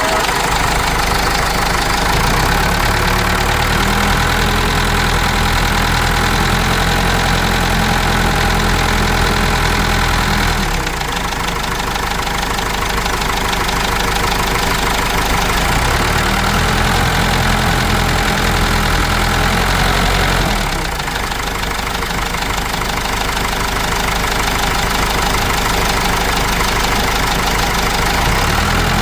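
Cummins 4BT four-cylinder diesel in a Case 586E forklift running, its note changing in steps: it eases off about 11 seconds in, picks up again, then eases off again about 21 seconds in. The engine has just had a new oil pickup tube fitted, and its knock is down to what the owner calls almost livable.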